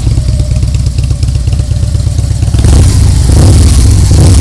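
Harley-Davidson V-twin motorcycle engine running loud, with a rapid pulsing exhaust beat; it grows louder, with more hiss on top, about two and a half seconds in.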